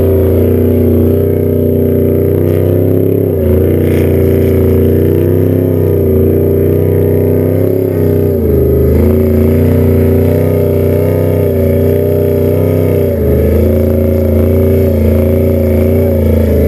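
Trophy truck's race engine held at high revs while the truck is stuck, its wheels spinning in loose dirt. The revs drop briefly three times and climb back each time.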